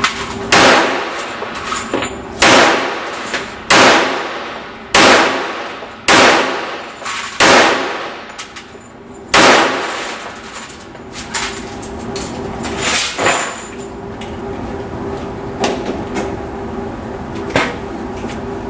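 Pistol shots fired one at a time, seven loud ones about every one to two seconds, each ringing off afterwards, then a few fainter shots at irregular spacing in the second half.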